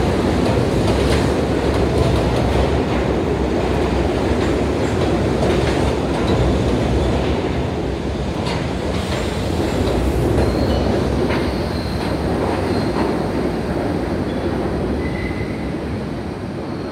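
R68A subway train pulling out of a station, its cars rumbling past with wheels clacking over rail joints and a few brief faint squeals, easing off slightly near the end as the last car leaves.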